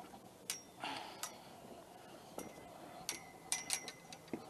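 Scattered light clicks and taps from footsteps and handled gear on wooden dock planks, with a quick cluster of clicks a little after the middle.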